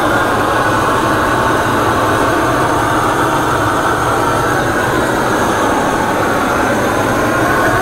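Handheld gas torch burning with a steady rush of flame as it sears the surface of a tri-tip steak.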